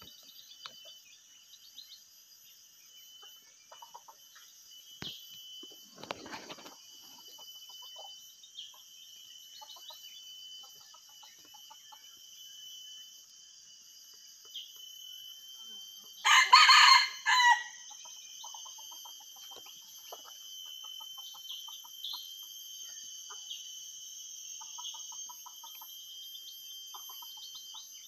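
Red junglefowl rooster crowing once, a short crow of about a second near the middle, followed by soft repeated clucks. Steady high insect drone underneath.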